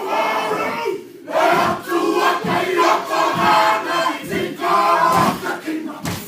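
A large group of voices chanting loudly in unison, in rhythmic shouted phrases with brief breaks between them.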